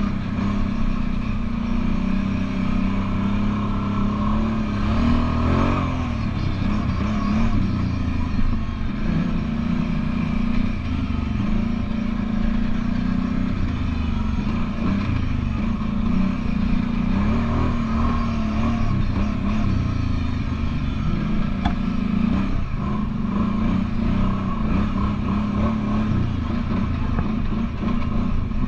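Kawasaki Brute Force 750 ATV's V-twin engine running steadily under way, its note rising and falling a little as the throttle changes.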